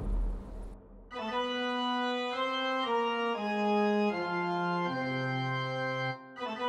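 The tail of a loud crash dies away, and after a brief pause organ music starts: sustained chords that change about every half second over a moving bass line, with a short break near the end.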